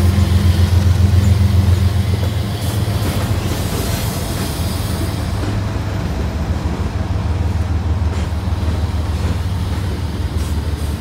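GE ES44DC diesel locomotive's engine rumbling as it passes close by, loudest for the first two seconds, then easing off as it pulls away. Freight cars of a second train roll by on the next track.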